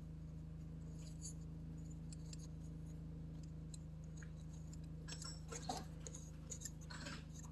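Faint small clicks and taps of metal carburetor parts being handled while the float bowl screw is threaded back in, over a steady low hum. The clicks come mostly in the second half.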